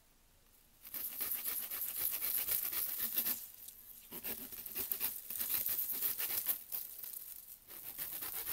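Small toothed saw blade rasping back and forth across a thin dried bamboo branch, cutting it off flush at the node. Quick short strokes start about a second in, with a brief pause near the middle.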